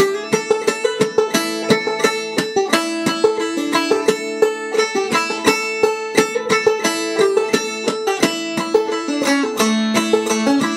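Banjo played clawhammer style in sawmill tuning (gDGCD, capoed up to A), a quick, even run of struck notes over ringing open strings.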